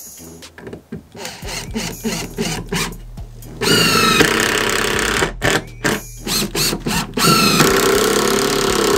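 Cordless driver sinking screws into wooden framing: two long runs of the motor, the first about three and a half seconds in and the second about seven seconds in, each falling in pitch as the screw bites. Lighter knocks and clicks of handling the wood and tool come before.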